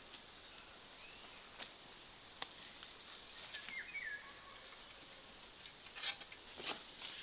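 Faint outdoor ambience: a few scattered sharp clicks and taps, with one short bird chirp about halfway through and a cluster of clicks near the end.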